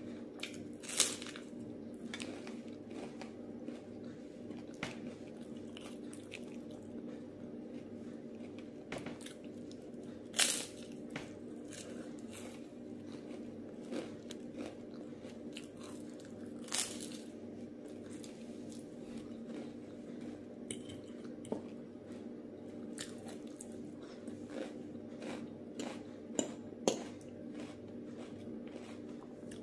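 Bites and chewing of a crispy puffed rice cake spread with avocado: a loud crunch about a second in, more every several seconds, and two close together near the end, with softer crackling chews between. A steady low hum runs underneath.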